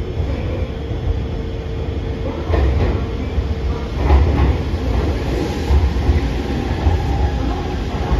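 Nankai 30000 series limited express train pulling into the platform: a steady low rumble, with the wheels knocking over rail joints several times as the cars pass.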